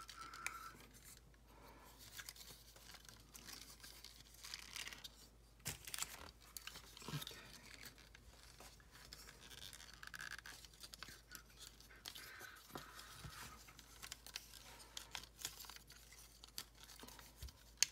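Faint, scattered clicks and scrapes of a plastic transforming robot figure being handled, its jointed parts turned, hinged and pulled. A few sharper clicks stand out.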